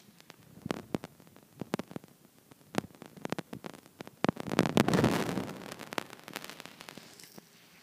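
Camera handling noise: scattered small clicks and taps, with a louder rustling scrape for about a second and a half around the middle.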